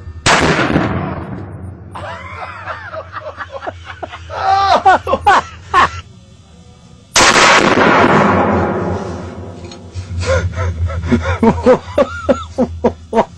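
Two rifle shots about seven seconds apart, each a sudden loud blast with a long echoing tail in a hard-walled indoor range. Voices call out in between and after.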